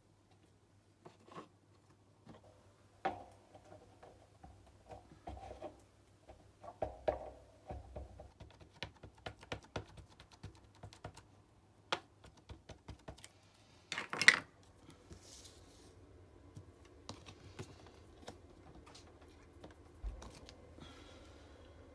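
Light taps and clicks of an ink pad being dabbed onto a rubber stamp and the stamp pressed onto paper. There is a quick run of taps in the middle and one louder knock about two-thirds of the way through.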